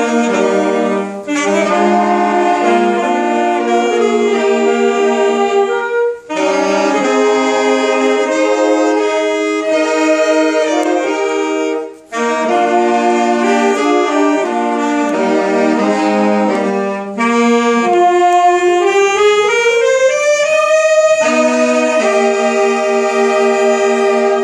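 Saxophone ensemble playing a Christmas medley in harmony, with short breaks between phrases about six and twelve seconds in and a rising slide in the lower part later on.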